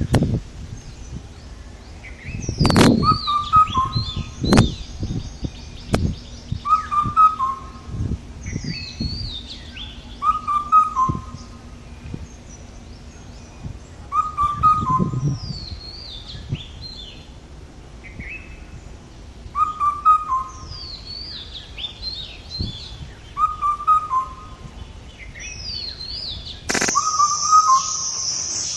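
Birds chirping, one bird repeating the same short call about every two seconds, with a few sharp knocks in the first half. Near the end a steady high hiss starts.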